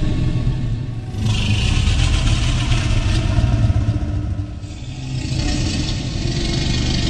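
Homemade Triceratops sound effect: a deep, continuous rumble with a harsh, rasping roar over it, starting about a second in and lasting some three seconds, then coming again in the second half.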